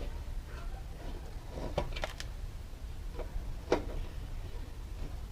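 Hand screwdriver tightening the screws of an RV vent cover, with a few scattered sharp clicks and knocks of the tool on the screws and cover, the loudest a little past halfway.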